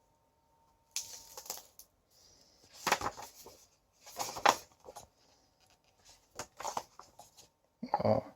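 Paper rustling as a thick art book is handled and its pages are turned, in several short bursts, with a few light taps and a duller knock near the end.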